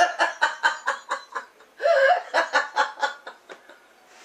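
A woman laughing hard in rapid, breathy bursts, two bouts of laughter with a short break about one and a half seconds in, dying away near the end.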